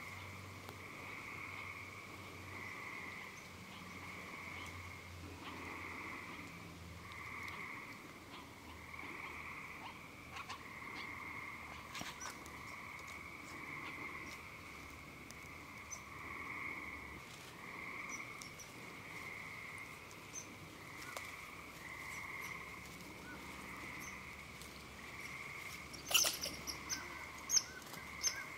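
A steady frog chorus in spring woodland, calling in pulses about once a second. A few sharp clicks come near the end, and they are the loudest sounds.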